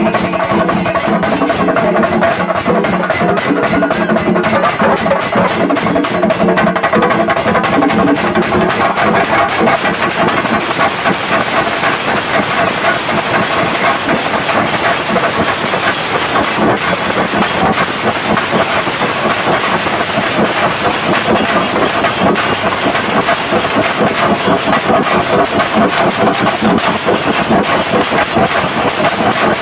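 A Kerala chenda drum ensemble playing a fast, dense roll on the drums with curved sticks. The sound is continuous and loud, and some steady pitched tones sound under the drumming for the first several seconds.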